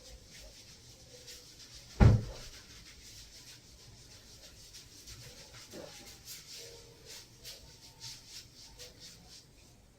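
A single dull thump about two seconds in, then faint, irregular rubbing and rustling.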